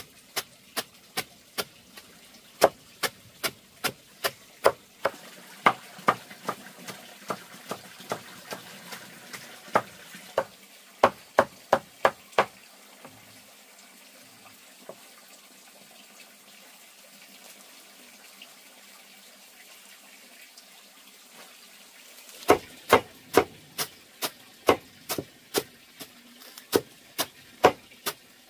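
A large knife chopping bundles of leafy greens against a wooden block: sharp, regular chops about two or three a second. The chopping stops for about ten seconds in the middle, then starts again.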